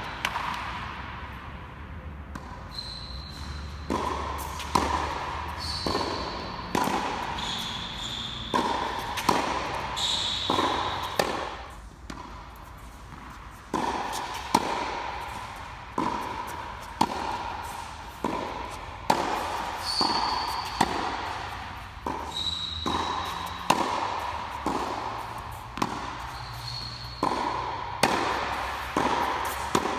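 Tennis ball struck by a racket and bouncing on a hard court in a steady rally, about one sharp pop a second, each ringing on in the echoing fabric-covered hall. The hits pause briefly about twelve seconds in, and short high squeaks come in between the shots.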